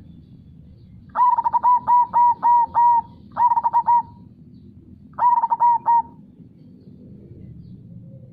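Zebra dove (perkutut) singing: three phrases of quick, repeated coos, the first the longest, with short pauses between them.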